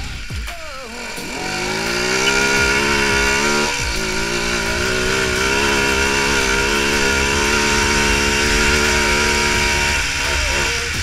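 Quad bike (ATV) engine heard from the rider's seat: the revs dip briefly near the start, then climb and hold steady at speed, with another short drop in revs about four seconds in.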